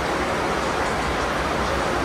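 Steady rushing noise with a low rumble underneath, from a pedestal electric fan running close to the microphone.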